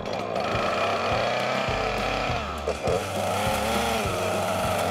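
Husqvarna two-stroke chainsaw revving up and down again and again, with background music underneath.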